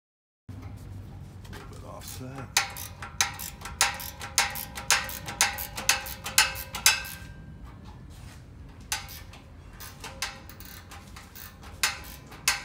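Hand ratchet wrench worked in quick regular strokes, about two clicking strokes a second, with a short pause partway through, as the exhaust hardware is tightened up.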